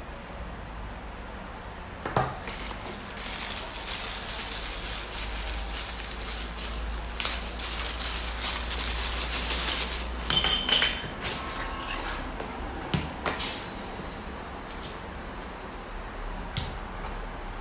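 Rustling and handling noise with scattered sharp clicks and knocks as a handheld mini fan and its packaging are unpacked and handled. The rustling is strongest in the middle and eases off, with a few louder clicks near the end.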